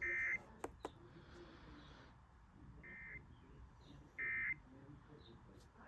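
Short electronic beeps from a device, three of them, each about a third of a second long, the second fainter. Two sharp clicks follow soon after the first beep.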